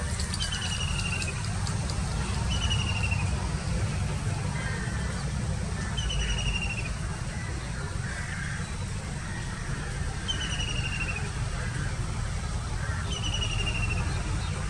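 Low steady rumble of a Class S12 diesel multiple unit approaching slowly. Over it a bird repeats a short falling trill five times.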